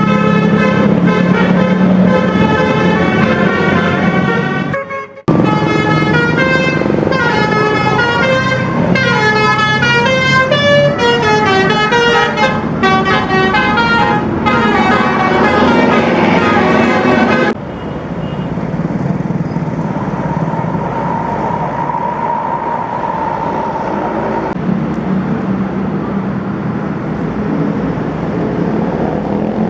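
Bus 'telolet basuri' musical air horn playing fast multi-note tunes, loud and melodic, with a short break about five seconds in. It stops about seventeen seconds in, leaving quieter vehicle engine and road noise.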